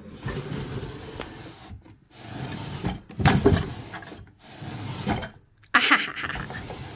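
Kitchen drawer slid open and shut several times in quick succession, its runners rumbling and knocking, to show that the non-slip shelf liner inside stays put.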